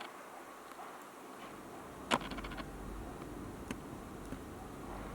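A small blower motor, such as a hot-air rework station's fan, starts up and blows steadily about a second and a half in. A sharp click about two seconds in is followed by a quick run of light ticks.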